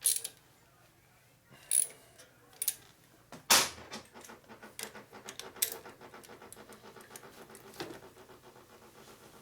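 Hand tools clicking against metal while a wire terminal is tightened on a motorcycle, a few sharp clicks and then a fast, even ticking for several seconds.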